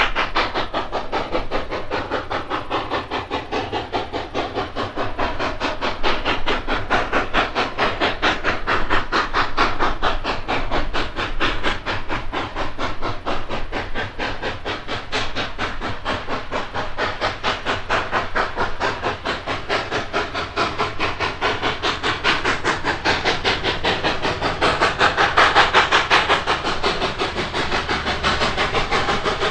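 Rio Grande K36 narrow-gauge 2-8-2 steam locomotive working hard up a 4% grade: a rapid, steady beat of exhaust chuffs with steam hiss, swelling a little louder near the end.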